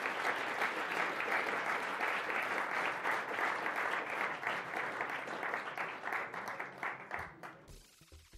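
Large audience applauding, a dense clatter of many hands clapping, which dies away about seven and a half seconds in.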